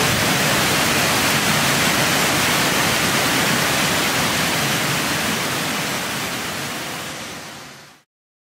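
Steady rushing of stream water over rocks. It fades out over the last two seconds and stops about eight seconds in.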